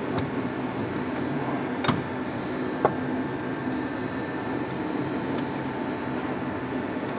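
Steady background hum with a few light, sharp knocks as the intercooler is set back in place by hand and its hose connection fitted; the strongest knocks come about two and three seconds in.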